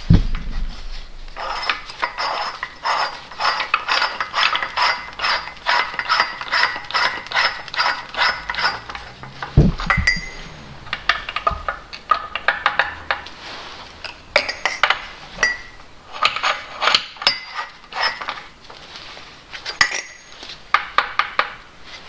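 Socket wrench ratcheting in quick runs of metallic clicks, with clinks of a large 46 mm socket and extension, as the big nut holding down the Mercedes M113 V8's oil filter housing is run down. One dull knock about ten seconds in.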